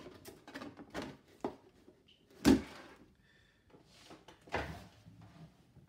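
Handling noise of a cardboard model-kit box being brought in and set down on a cutting mat: soft knocks and scrapes, with one loud thump about two and a half seconds in and a weaker one near five seconds.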